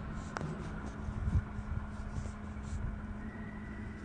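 Steady low rumble and hum of machinery in a large factory hall, with a single sharp click about half a second in.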